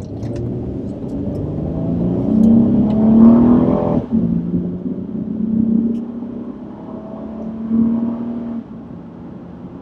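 Honda J35 3.5-litre V6 of a 2009 Honda Ridgeline accelerating hard, heard inside the cab: the engine note climbs, drops suddenly about four seconds in as the automatic shifts up, climbs again, then settles near the end.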